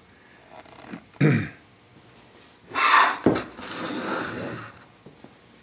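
A few short scraping and rubbing sounds of wood on wood as a drawer board is shifted into place on top of a wooden box, the loudest about halfway through, followed by about a second of softer rubbing.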